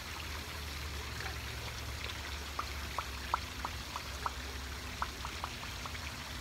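Steady rush of water from a small waterfall on a rain-swollen creek, with a quick run of about a dozen small water plinks and drips in the middle.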